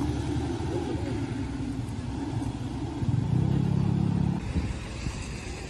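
Road traffic passing on a wet street: a steady low rumble, with one vehicle's engine louder for about a second just past the middle.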